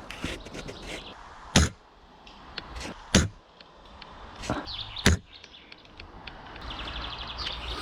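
Three sharp shots from an airsoft rifle, a second and a half to two seconds apart.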